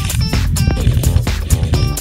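Background music with a steady beat and pitched instrumental notes.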